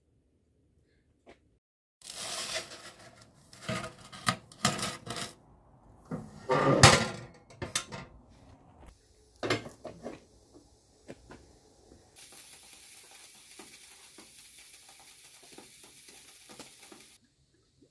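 Metal cookware and stove parts clattering and knocking on a wood-burning cookstove as they are handled, with the loudest knock about seven seconds in. After that comes a steady faint hiss.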